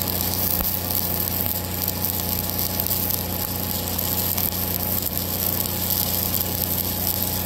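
Stick welding arc from a 1/8-inch ESAB 7018 electrode at 124 amps, a steady crackling sizzle, over the steady hum of an engine-driven welder running.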